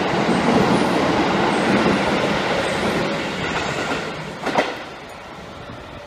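Electric commuter train pulling away along a station platform, its wheels clattering over the rail joints as it draws away and fades, with one brief louder knock about four and a half seconds in.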